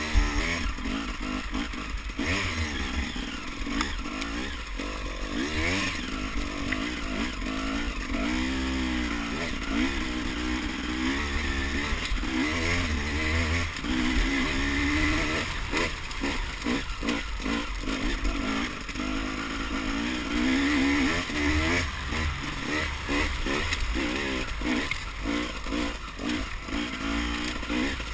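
Off-road dirt bike engine being ridden along a trail, its pitch rising and falling again and again with the throttle, over a constant low rumble.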